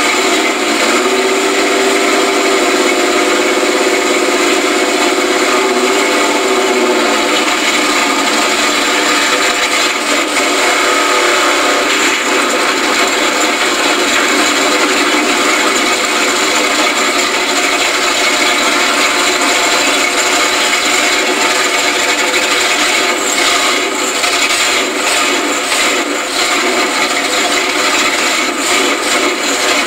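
4x4 mud truck's engine running as the truck drives, heard from inside its caged cab. A steady pitched drone for the first several seconds gives way to a rougher, noisier sound, with a few knocks or rattles near the end.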